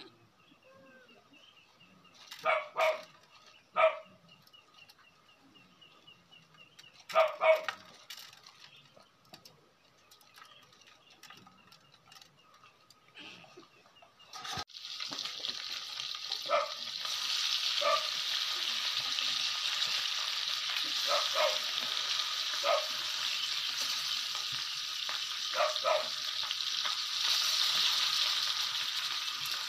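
Skewered fish frying in hot oil in a pan, a steady sizzle that starts abruptly about halfway through. Before it, a few short animal calls, two close together early on and a cluster a few seconds later, with more calls fainter under the frying.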